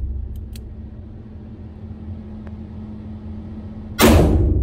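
A .38 revolver, a Taurus 889 with a six-inch barrel, fires a single loud shot about four seconds in, and the report rings on in the reverberation of an indoor range. Earlier, the tail of the previous shot dies away and the hammer is thumbed back with a couple of light clicks, over a steady low hum.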